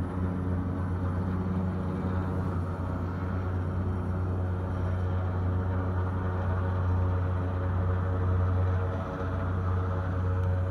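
Helicopter hovering at a high-rise rooftop on a lift line, its rotor and engine a steady low drone heard through window glass.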